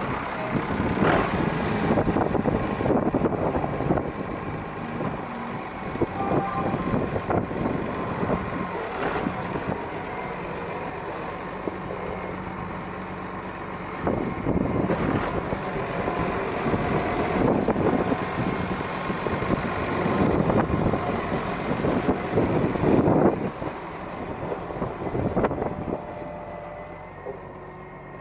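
Large cab farm tractor's diesel engine running as the tractor moves off. It gets quieter about three-quarters of the way through as the tractor drives away.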